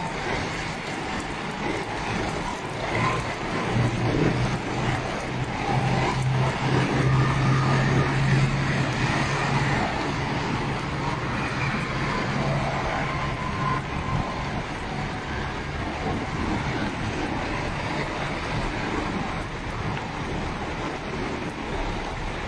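Street noise: a motor vehicle's low engine hum swells over several seconds, loudest just before the middle, then fades. A steady hiss runs beneath it.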